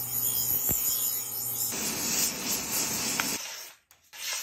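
Bench grinder wheel grinding a steel knife blade: a steady hiss over a low motor hum. About a second and a half in, it gives way to a rougher rasping noise that stops about three and a half seconds in. Near the end comes a short swish of the knife slicing through paper.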